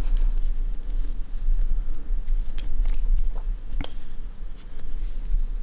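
Crochet hook and acrylic yarn being worked by hand, giving a few faint ticks and rustles as a stitch is finished, over a steady low hum.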